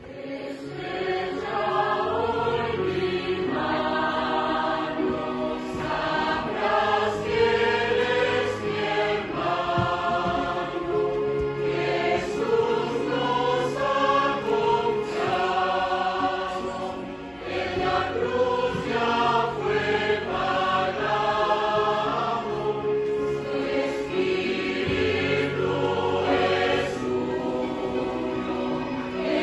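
Mixed choir of men's and women's voices singing a welcome hymn, with a brief pause between phrases about halfway through.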